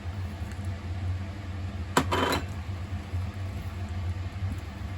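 Kitchen sounds while preparing pasta: a steady low hum from an appliance, with one sharp knock and a short clatter of dishes or utensils about two seconds in.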